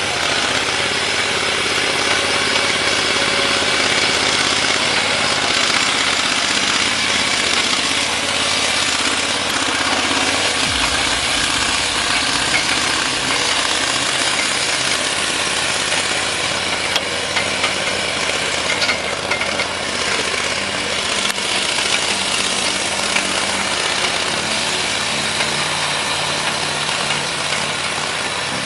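Small engine of a compact remote-controlled log-hauling machine running steadily.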